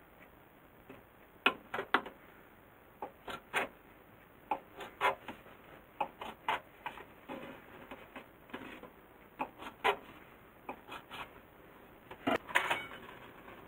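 Kitchen knife cutting bacon into bite-size pieces, the blade knocking on a cutting board in sharp, irregular taps, roughly one or two a second, with a louder cluster near the end.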